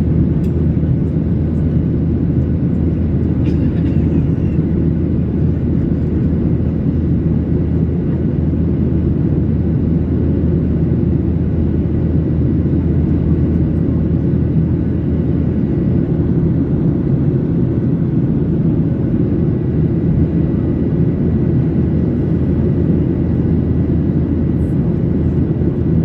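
Steady cabin noise inside a Boeing 737-800 in flight: a constant low rumble of the CFM56 engines and airflow over the fuselage, with a faint steady hum above it.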